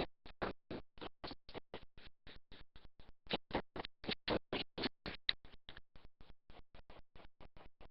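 A rapid, even train of short scratchy noise bursts, about four to five a second, with dead silence between them.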